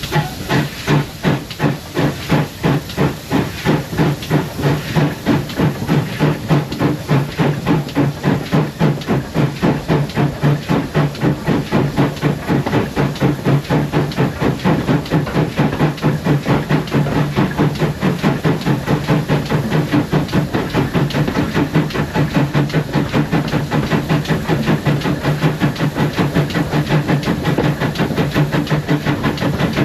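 Steam locomotive working hard, its exhaust chuffing in a regular beat that quickens steadily as it gathers speed.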